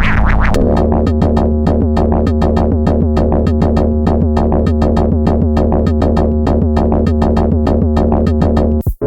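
Elastic Drums drum-synthesizer app playing an electronic drum pattern: rapid, evenly spaced synthesized hits, about four to five a second, over a steady bass tone. It cuts out briefly near the end and a different pattern starts, as the next preset comes in.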